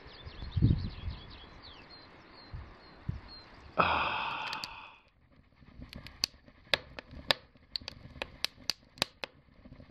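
Small birds chirping at first light, with a short loud squeak about four seconds in. Then logs burning in a wood stove, crackling with sharp pops, a few a second.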